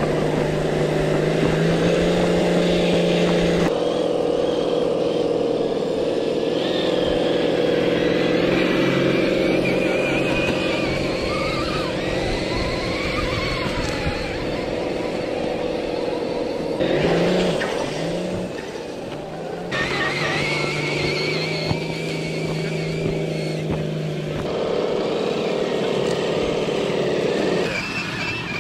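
Electric motor and gear train of a radio-controlled scale crawler truck whining steadily under throttle. The pitch shifts a few times, with a brief dip and rise a little past halfway.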